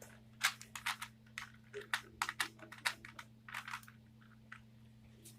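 A 3x3 Rubik's Cube's plastic layers being twisted by hand: a quick, irregular run of clicks and clacks that thins out about four seconds in.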